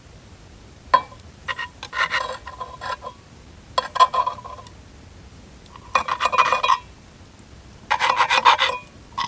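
A knife sawing through a cooked steak in a skillet, the blade scraping on the pan in several short rasping bursts.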